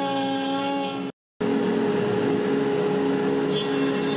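DWC5100 CNC router running, its spindle giving a steady whine of several tones as it cuts a wood sheet. The sound drops out for a moment about a second in, then the machine runs on with a different single steady hum.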